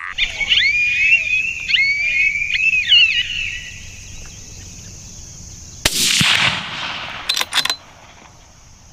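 Coyotes yipping and howling in high, wavering, quick-bending glides for about three seconds. About six seconds in comes a single loud rifle shot with a long echo, followed about a second and a half later by two quick sharp cracks.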